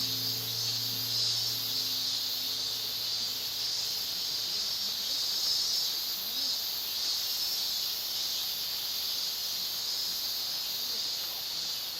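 Insects singing in a summer forest: a steady, high-pitched shrill drone with an evenly pulsing trill above it, about two pulses a second.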